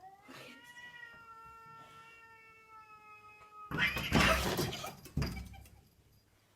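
A cat's long drawn-out meow that rises at the start, then holds one steady pitch for about three and a half seconds. As it ends, a loud noisy burst follows for about a second and a half.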